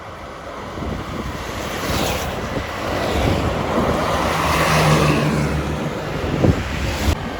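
Bus passing close by on the road, its engine and tyre noise swelling to a peak about halfway through, then easing off.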